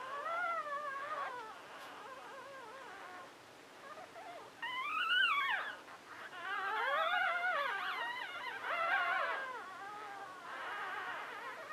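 Five-day-old Chinese Crested puppies whimpering and squealing as they sleep: thin, high cries that rise and fall in pitch. There is a sharp rising squeal about five seconds in, and a run of cries follows over the next few seconds.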